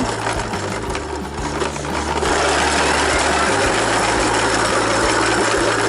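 A small electric motor whirring steadily, growing louder and fuller about two seconds in.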